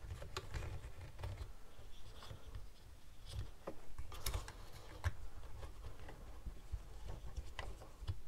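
Hands handling a plastic propeller holder and a DJI Mavic Air 2 drone's folded propellers: faint, scattered light clicks, taps and rubbing as the holder is worked into place over the blades.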